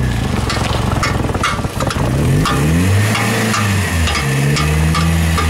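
Damaged CV joint on a Skoda Fabia's front drive shaft clicking rhythmically, a few clicks a second, as the car rolls with its front wheels turned, over the engine running. The engine's pitch rises about two seconds in. The clicking under steering lock is the sign of the worn joint.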